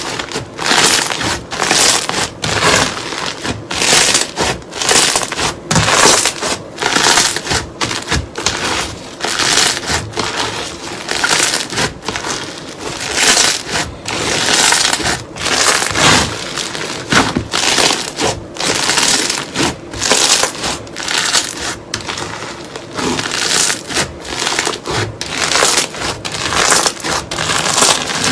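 Slime being pressed and squeezed by hand, giving a rapid series of crackly, crunching squishes, about one or two a second.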